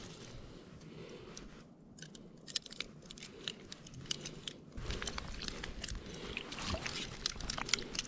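Close, irregular crunching and crackling handling noises, scattered clicks at first and denser and louder from about five seconds in.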